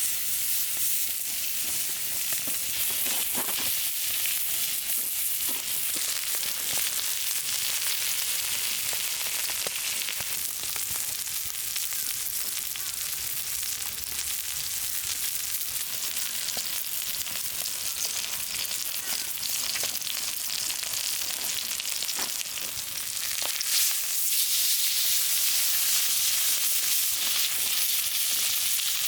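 Food frying on a hot cooking surface: a steady, high sizzle that gets a little louder about 24 seconds in.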